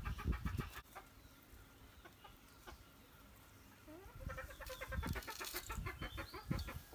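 Hens clucking: a quick run of clucks at the start, then a short rising call and a longer run of clucks from about four seconds in.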